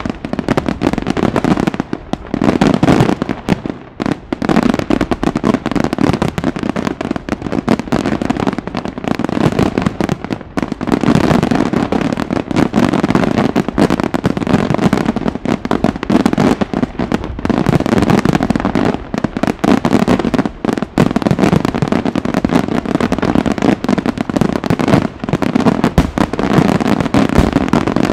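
Professional display fireworks: aerial shells bursting in a dense, continuous barrage, bangs packed closely together with crackling stars between them.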